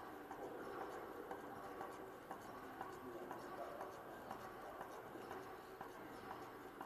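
Faint gallery room sound: soft footsteps and small taps on a hardwood floor, with indistinct voices murmuring in the background.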